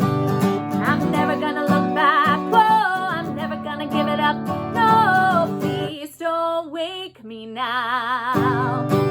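A song with strummed acoustic guitar and a singing voice, its pitch wavering and sliding; the accompaniment briefly thins out about six seconds in.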